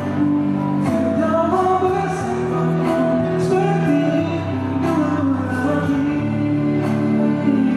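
A man singing a melody into a handheld microphone over instrumental accompaniment of held chords.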